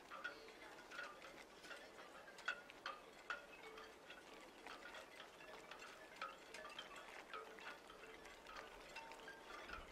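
Faint, irregular tinkling chimes mixed with light ticks, several a second, over a soft hum that comes and goes.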